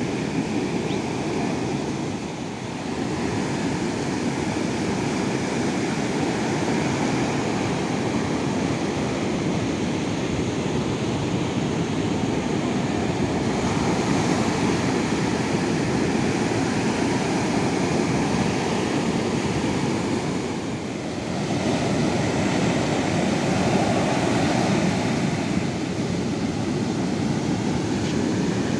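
Sea surf washing steadily ashore in a continuous rush of waves. It eases briefly about two and a half seconds in and again around twenty-one seconds, then swells back up.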